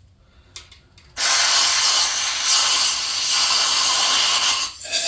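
Aerosol brake cleaner sprayed in one long hiss of about three and a half seconds, then a short second burst, flushing swarf out of a freshly tapped head bolt hole.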